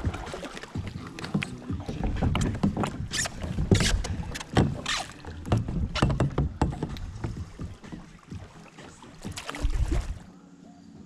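Kayak being paddled on a creek: a run of irregular paddle splashes and knocks that stops abruptly about ten seconds in.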